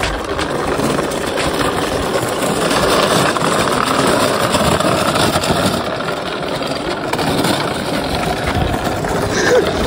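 Hard castor wheels of a wooden furniture dolly rolling over rough asphalt under a heavy load of chain in a plastic tub: a steady, loud rumble.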